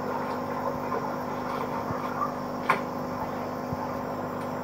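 Small aquarium's pump running with a steady hum, water bubbling in the tank. There is one short sharp sound about two and a half seconds in.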